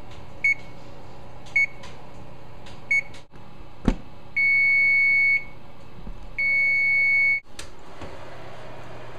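Electronic oven control panel beeping as its keypad is pressed: three short beeps about a second apart, a sharp click, then two longer beeps. Near the end a click and a soft rush as the oven door is opened.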